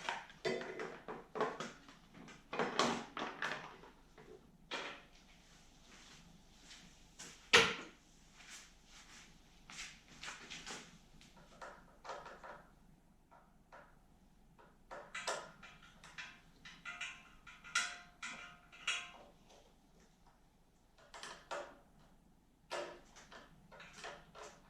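Tools and small engine parts being handled during carburetor work on a snowblower: irregular clicks, clinks and knocks, the loudest about seven and a half seconds in, with a stretch of light scraping and rattling in the second half.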